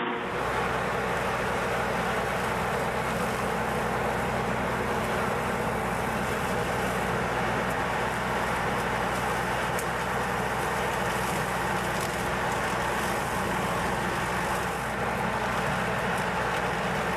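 Skid steer engine running steadily at working speed, driving a Spartan articulating hydraulic brush cutter, a constant low engine hum under dense mechanical noise.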